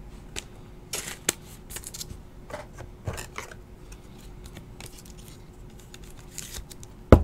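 Trading cards being handled and a card slid into a stiff plastic top loader: scattered small clicks, scrapes and rustles over a faint steady hum, with one sharper knock near the end.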